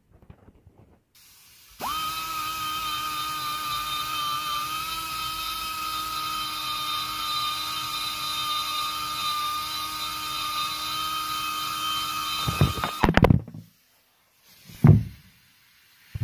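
Pneumatic die grinder with a carbide burr cutting the aluminium exhaust port of a Mazda rotary engine's rotor housing. A steady high whine with hiss starts about two seconds in, holds for about ten seconds, then stops with a brief clatter. A single thump comes near the end.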